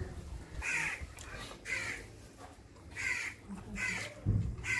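Crows cawing repeatedly, short harsh calls about once a second, with a dull thump about four seconds in.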